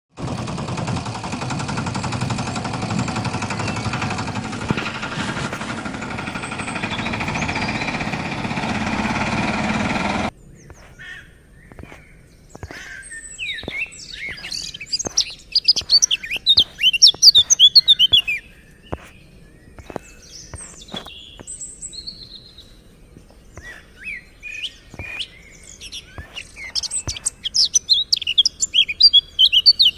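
A dense, steady rushing noise for about the first ten seconds, which cuts off abruptly. After it, birds chirp and twitter in quick bursts, busiest near the middle and again near the end.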